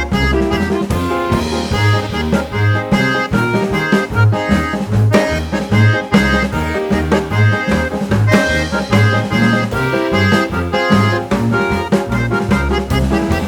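Jazz-style instrumental music with a steady beat, a bass line and drums.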